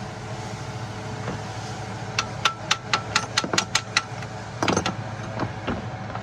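A hammer striking metal in a quick run of about nine ringing blows, followed shortly after by a brief clatter, over a steady low hum.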